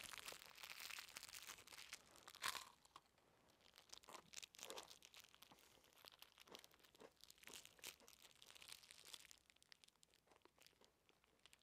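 Faint crinkling and tearing of a fortune cookie's plastic wrapper as it is handled and opened, with a louder crackle about two and a half seconds in; the crinkling stops near the end.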